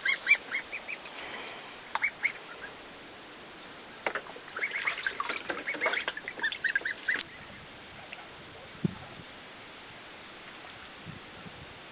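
Ducks or geese calling in runs of short, high calls, in the first two seconds and again from about four to seven seconds in, then quiet apart from a couple of soft low bumps.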